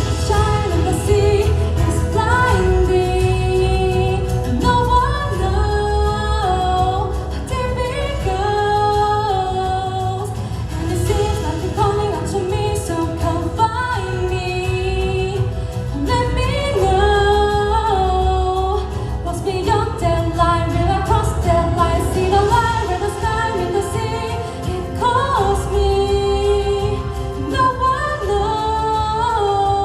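A singer performs a song live over backing music, with a melody of long held notes.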